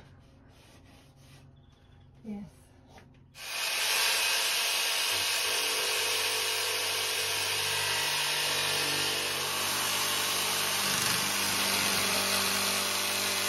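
Bosch jigsaw cutting across a wooden cladding board. It starts about three seconds in and then runs steadily, with a buzzing motor note under the noise of the blade. Before it, only quiet handling sounds and one short knock.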